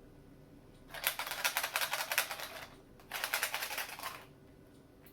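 Small plastic eggs filled with buttons shaken by hand, a rapid clicking rattle in two bursts: one of about a second and a half, then a shorter one after a brief pause.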